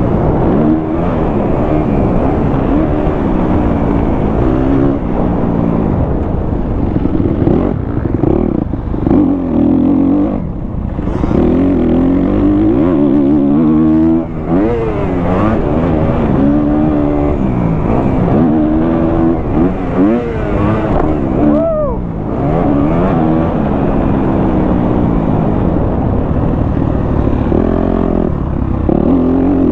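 Single-cylinder four-stroke engine of a 2023 Kawasaki KX250F motocross bike being ridden hard, the pitch climbing through the revs and dropping off again many times as the rider shifts and rolls off for corners.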